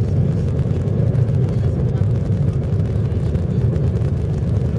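Steady low rumble inside a jet airliner's cabin: engine and airframe noise.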